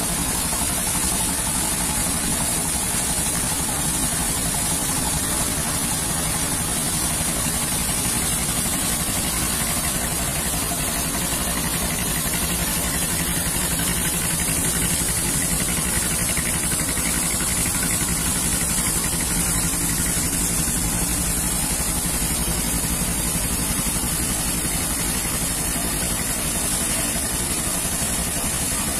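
Steady machinery drone: a diesel engine's low hum beneath a broad rushing hiss from a conveyor loader pouring coal into a barge.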